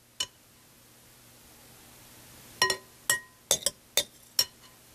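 A metal spoon clinking against glass bowls while tomato mixture is spooned from a large glass mixing bowl into a small one. There is one clink just after the start, then a quick run of about seven short, ringing clinks in the second half.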